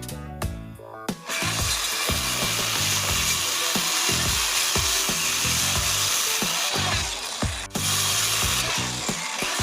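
Background music with a steady beat; about a second in, a power tool starts working wood, running steadily, with a short break about eight seconds in before it starts again.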